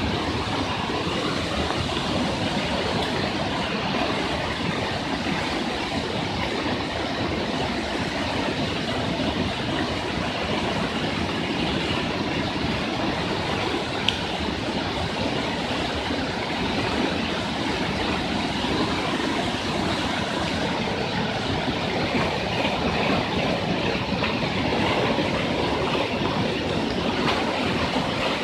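Fast-flowing floodwater rushing in a steady, unbroken noise, with a single click about fourteen seconds in.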